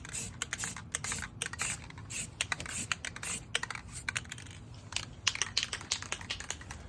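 Aerosol spray-paint can giving many quick, short bursts of spray, a few hisses a second, as the first coat of paint goes onto a wheel rim.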